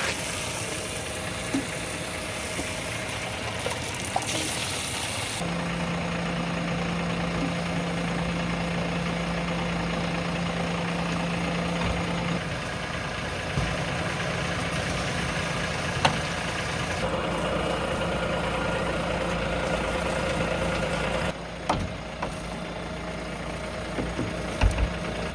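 JCB 3DX Plus backhoe loader's four-cylinder diesel engine idling steadily, with a few short knocks, the loudest near the end.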